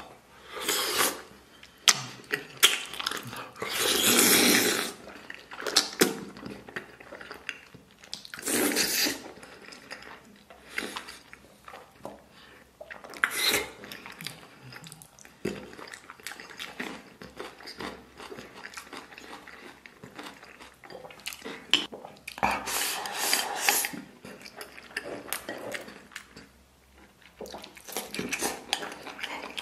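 Close-miked eating: chewing soft, gelatinous braised pig's trotter skin and rice, with wet mouth noises in short bursts and chopsticks clicking against a porcelain bowl now and then.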